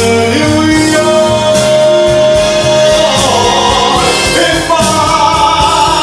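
Man singing into a microphone over backing music, holding long sustained notes.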